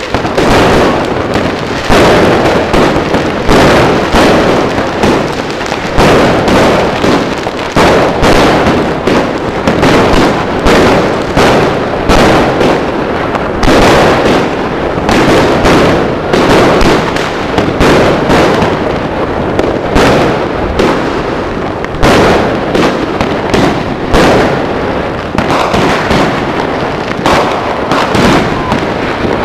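Aerial fireworks firing at close range: shot after shot launching from the ground and bursting overhead, a loud bang about every second with fizzing and crackle in between.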